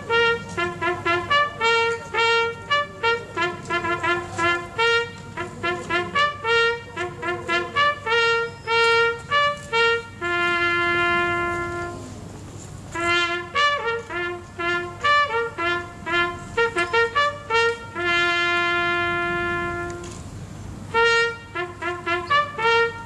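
Solo trumpet playing a commemorative call: runs of short, separate notes broken by two long held notes, one about ten seconds in and one near eighteen seconds.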